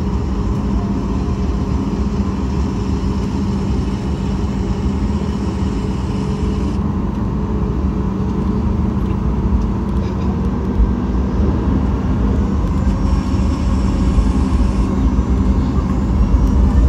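Cabin noise of a Boeing 737 MAX 8 taxiing, its CFM LEAP-1B turbofans running at low power with a steady rumble and hum. In the last few seconds the sound grows louder and a rising whine sets in as the engines begin to spool up for takeoff.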